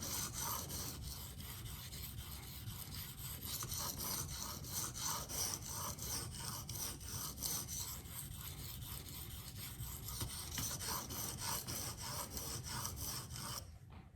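A K390 steel knife blade being stroked quickly back and forth across a coarse Venev diamond waterstone. It makes a steady, rhythmic scraping of about four or five strokes a second, and the scraping stops suddenly just before the end.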